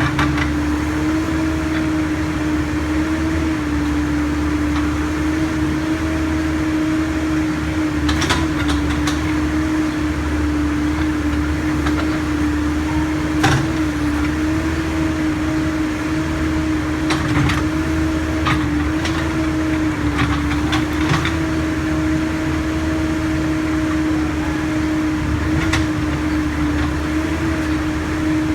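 Backhoe's diesel engine and hydraulics running steadily with a constant hum, over a low rumble, with scattered knocks and clanks from the digging.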